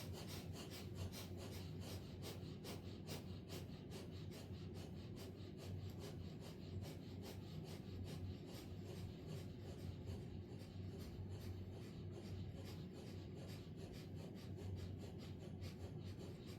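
Kapalbhati breathing: short, forceful exhalations through the nose, repeated at a steady rapid rhythm of several a second, faint over a low steady hum.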